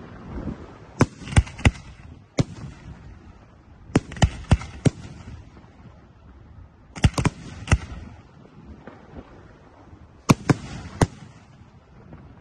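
Aerial firework shells bursting: sharp bangs in clusters of three or four, a new cluster about every three seconds, with a low rumble between them.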